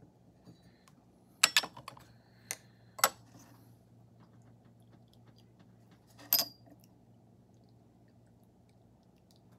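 Porcelain teaware clinking and tapping as it is handled: a few separate sharp clinks, the one about six seconds in ringing briefly, over a faint steady low hum.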